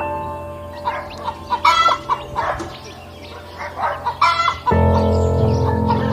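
Chickens clucking, with a few short, sharp calls, over background music that swells louder near the end.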